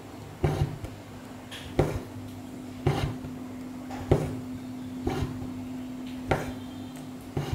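Hand-embroidery needle pricking through taut fabric, a short sharp tap with each stitch, about once a second. A low steady hum sets in about a second in.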